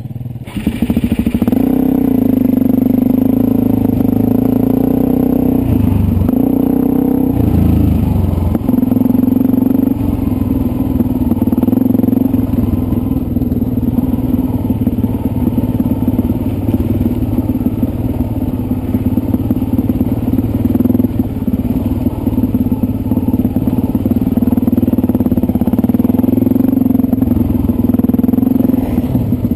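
Dirt bike engine running under way on a rough trail, heard close from the rider's helmet. The engine note shifts and dips about six to eight seconds in, then holds steady.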